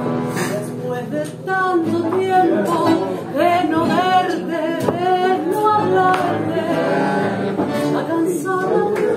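A woman singing a tango, with bandoneon and acoustic guitar accompanying her.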